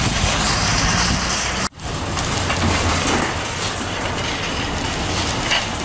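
Empty metal shopping cart rattling and clattering as it is pushed over asphalt and pavement, its wheels rolling steadily. The sound drops out for an instant a little under two seconds in, then carries on.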